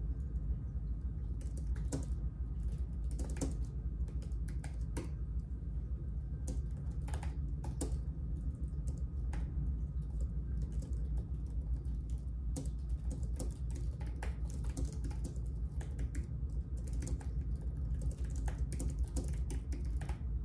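Typing on a computer keyboard: irregular bursts of keystrokes with short pauses between them, over a steady low hum.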